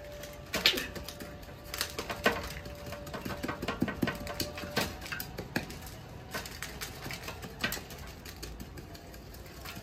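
Irregular clicks, taps and rustling of hands working soil loose from a potted lemon plant's root ball.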